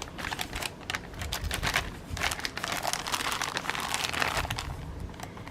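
Plastic kit packaging crinkling and rustling in the hands, an irregular run of small crackles and clicks.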